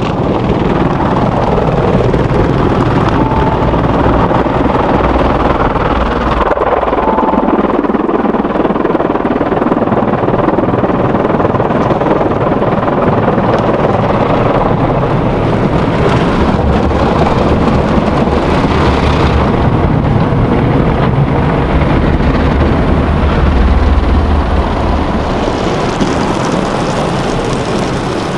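Automatic car wash machinery working over the car, heard from inside its cabin: a loud, steady rumble and rush of rotating brushes and water on the body.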